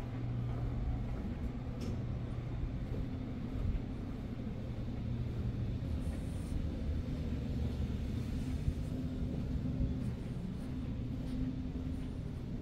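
Steady low hum and rumble of a hotel corridor's building background, with two constant low tones, and muffled handling and footstep noise from a handheld camera carried along the carpet.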